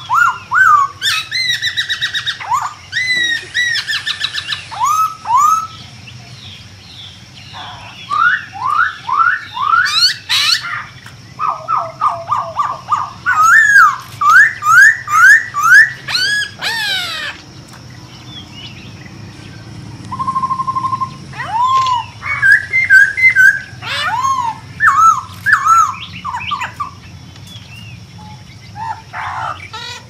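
Laughingthrush song: loud runs of quick, rising whistled notes mixed with chattering phrases, coming in bursts with short pauses. A steady high-pitched hum runs underneath.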